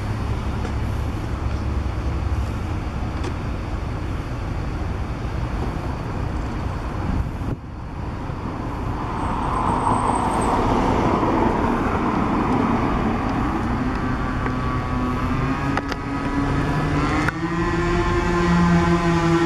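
Mercedes-Benz O530 Citaro city bus running at a stop amid street traffic, then its engine revving up, the pitch climbing from about two-thirds of the way in, as the bus starts to pull away.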